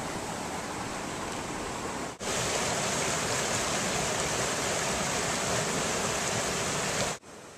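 Mountain stream rushing over rocks in a small cascade, a steady rush of water. It becomes louder after a break about two seconds in and cuts off abruptly near the end.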